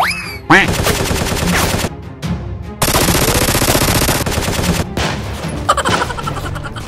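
Rapid machine-gun fire sound effects in several bursts, the longest lasting about two seconds in the middle, dubbed over Nerf blasters being fired, with background music underneath.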